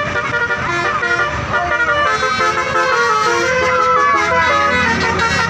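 Basuri telolet bus horn playing a run of quick melodic notes, several horn tones sounding together, over the low rumble of traffic.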